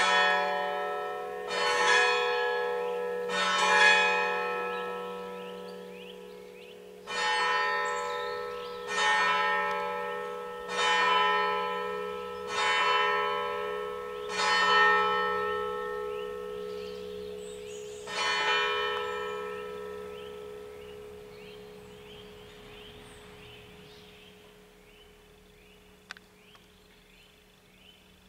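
A church bell tolling slowly, about nine strokes roughly two seconds apart with one longer pause after the first few. The last stroke falls about eighteen seconds in, and its ringing slowly dies away.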